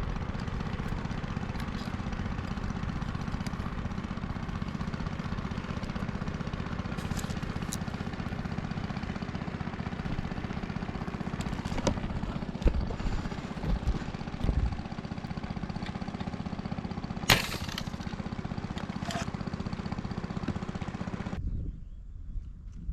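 A small engine running steadily with a rapid, even beat. A few knocks come in the middle and one sharp click comes later. Shortly before the end it cuts off abruptly and leaves quieter background sound.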